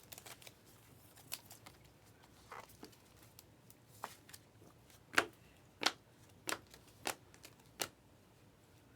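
Trading cards handled and flipped one behind another, making short sharp swishes. They are sparse at first, then come about every two-thirds of a second in the second half.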